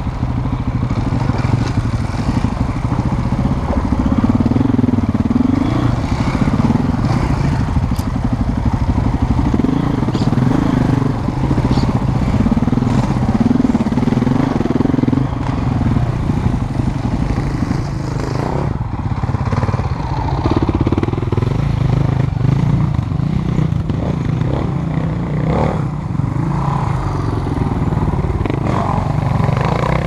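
2007 KTM 450 EXC single-cylinder four-stroke enduro engine running under load, its revs rising and falling with the throttle, with a few brief knocks over rough ground.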